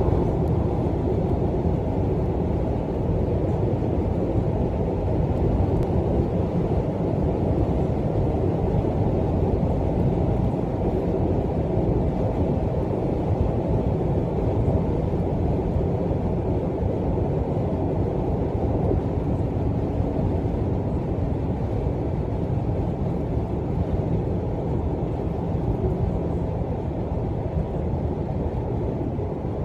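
Steady in-cabin road noise of a Subaru Impreza cruising at expressway speed: a low, even rumble of tyres and engine.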